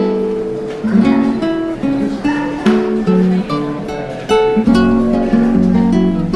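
Background music: acoustic guitar, with notes plucked one after another in a melody.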